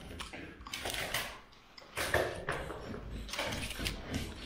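A small metal blade scraping and cutting filler off a plaster ceiling in several short, irregular strokes, with flakes of old filler and black mastic coming away.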